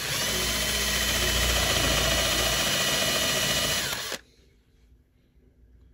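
Power drill with a twist bit boring into stacked plywood, running steadily for about four seconds, then stopping suddenly.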